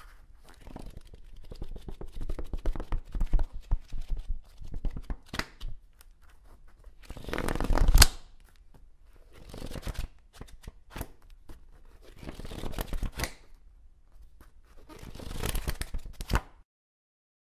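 Paper pages of a thick book rustling and crackling as they are turned, in several swells, the loudest about eight seconds in ending in a sharp slap; the sound stops suddenly near the end as the book closes.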